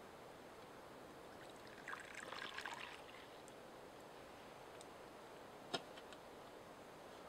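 Campfire crackling faintly: scattered pops of burning wood, a short run of crackling about two seconds in, and one sharp pop later on, the loudest sound.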